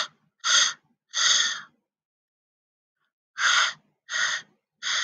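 A woman voicing the /h/ sound of the letter H: short, breathy puffs of breath with no voice, six in all, in two sets of three with a pause between.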